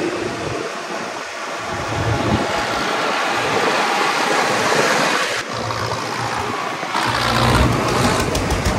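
Rushing, wind-like noise mixed with heavy vehicle engines. About seven seconds in, a deeper, steady diesel engine rumble from the backhoe loader and tractors comes up and stays.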